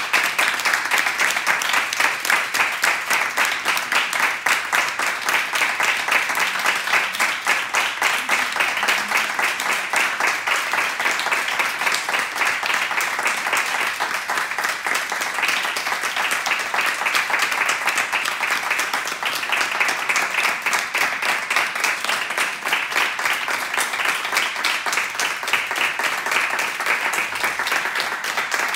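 A roomful of seated people clapping their hands in steady, unbroken applause, many claps overlapping.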